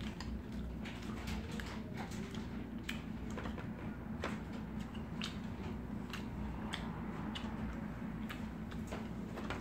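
Someone eating with metal chopsticks: chewing, and irregular small sharp clicks of the chopsticks against plates and food, over a steady low hum.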